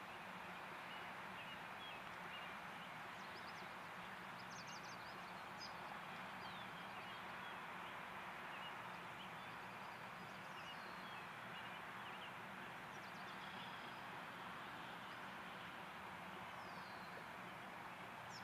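Outdoor ambience: a steady faint hiss and low hum, with small birds giving short high chirps now and then.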